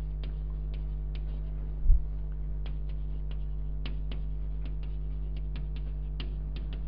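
Chalk clicking and tapping on a blackboard while formulas are written, short irregular ticks a few times a second, over a steady electrical mains hum. A single low thump about two seconds in.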